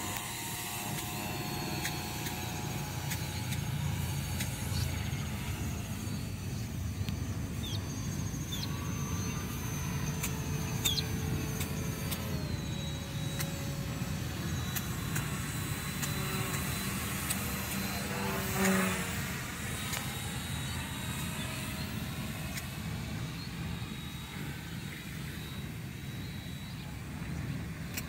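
Thin, distant whine of a small electric RC plane's 2208 1000kv brushless motor and propeller, gliding up and down in pitch as it flies and throttles, with a louder pass about two-thirds of the way through. A steady low background noise runs underneath.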